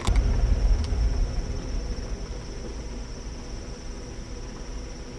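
A sharp bump and a low rumble of the camera being handled as it swings, fading over about two seconds, over a steady high-pitched chorus of insects.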